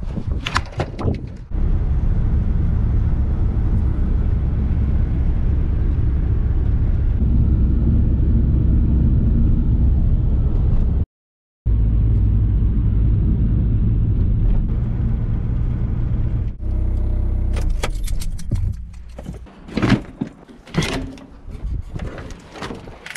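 A few metal knocks and clanks as the Volkswagen Transporter pickup's drop-side is worked open. Then a steady low engine and road rumble heard from inside the moving pickup's cab, cut off briefly near the middle. Over the last few seconds come scattered knocks and clatters as the wooden side boards of the load bed are handled.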